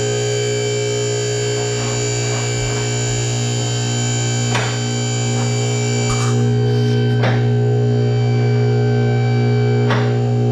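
Background music: steady held tones like a distorted guitar or synth drone, with a few faint clicks.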